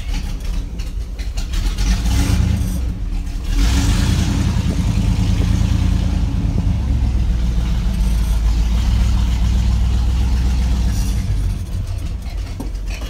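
Bigfoot 1 replica monster truck's engine running a minute after a cold start, heard from inside the cab. It is blipped about two seconds in, held at higher revs for several seconds, then drops back toward idle near the end.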